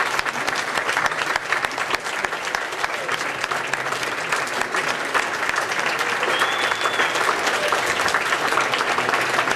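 Audience applauding: many people clapping steadily throughout.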